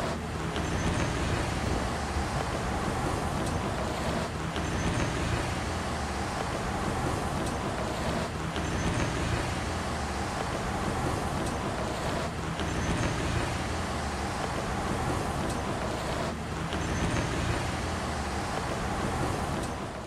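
Steady rumbling vehicle-like noise, a substitute soundtrack that repeats in a loop about every four seconds.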